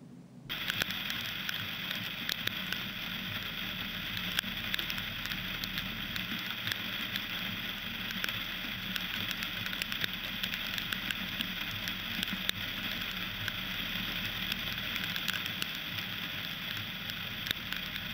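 Steady rain falling: a dense hiss crowded with small drop ticks, starting suddenly about half a second in.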